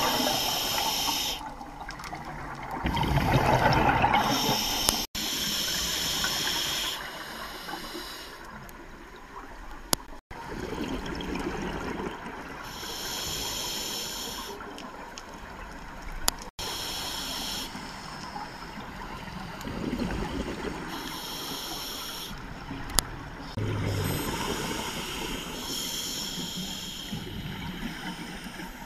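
Diver breathing through a scuba regulator underwater, with a burst of hissing, bubbling exhaust every few seconds.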